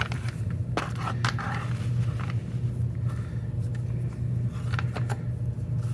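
Scattered clicks and scrapes of chainsaw parts being handled and fitted, about half a dozen over the few seconds, over a steady low hum.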